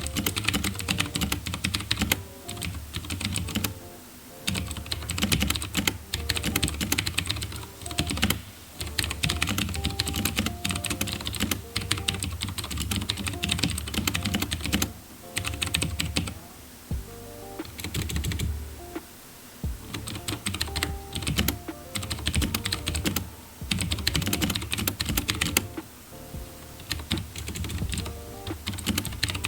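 Fast typing on a HyperX Alloy FPS mechanical keyboard with Cherry MX Blue switches: a rapid run of sharp, clicky keystrokes in bursts, broken by short pauses every few seconds.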